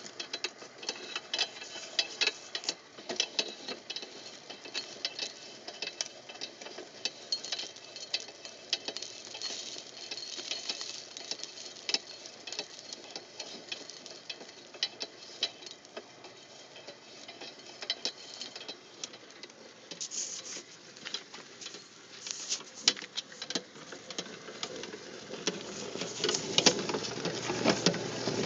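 Inclined feed auger running, its steel tube ringing with a constant irregular patter of clicks and ticks as the material is carried along the metal. Near the end it grows louder with a fuller churning noise.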